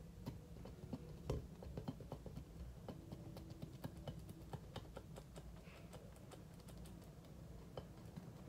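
Homemade slime being kneaded and squeezed by hand, giving a run of small, irregular clicks and pops.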